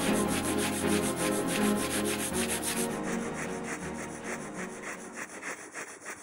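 Miniature bow drill rubbing: the small bow is sawed rapidly back and forth, spinning a wooden spindle in a fireboard socket in quick, even scraping strokes, friction fire-lighting to work up an ember. Soft background music plays underneath and fades toward the end.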